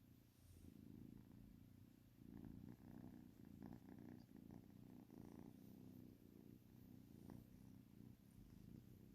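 A kitten purring softly and steadily, the faint low rumble rising and falling in even cycles.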